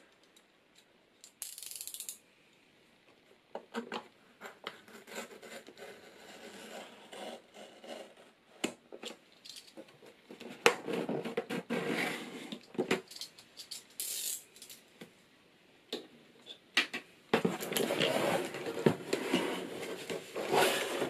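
A plain cardboard box being opened by hand: the seal is broken, then the cardboard and packing inside rustle and scrape, with scattered clicks. There are short hissing tears early on and near the middle, and the rustling grows denser and louder toward the end.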